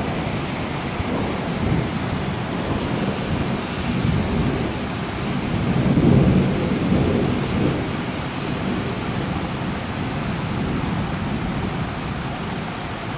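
Thunderstorm: steady rain with rolling thunder, a low rumble that swells to its loudest about halfway through and then dies away.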